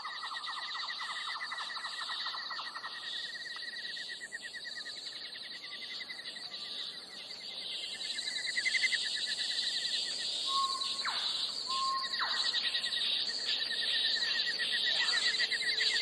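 Tropical rainforest ambience: a chorus of rapid, pulsing trills from calling insects at several pitches, with a few short whistled bird calls a little past halfway, growing louder in the second half.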